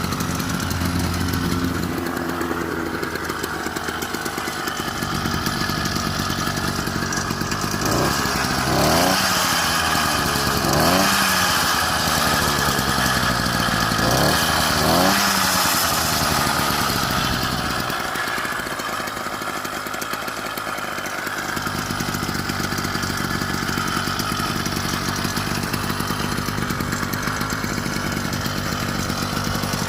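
A new 49cc two-stroke bicycle engine kit running while being broken in: a steady idle, with the throttle opened and let back down several times in the middle.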